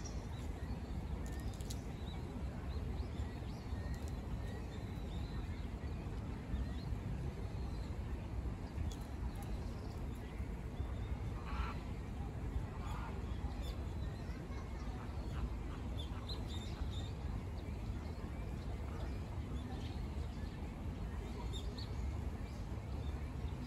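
Outdoor ambience: a steady low rumble with faint, scattered short chirps, and a brief honking call about halfway through.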